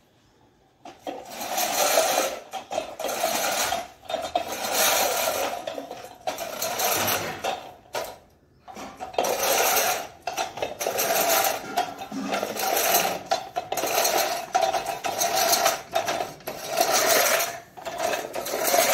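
Manual push reel lawn mower: the spinning cylinder blades whirr as they cut grass, rising in repeated surges about every second and a half as the mower is pushed back and forth. The whirring starts about a second in and breaks off briefly around the middle.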